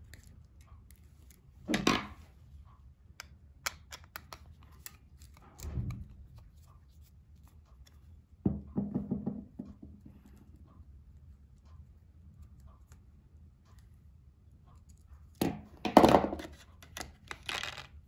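VESSEL 3500E wire stripper worked by hand, making scattered clicks and knocks. Near the end it gives a louder cluster of sharp crunching snaps as a small screw is sheared in its screw-cutting holes.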